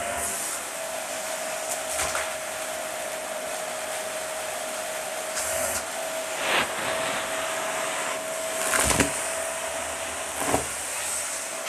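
Dyson vacuum cleaner running on its hose, a steady suction noise with a constant whine. About four short sharp rattles, about 2, 6.5, 9 and 10.5 seconds in, as bits of crunchy debris are sucked up through the hose.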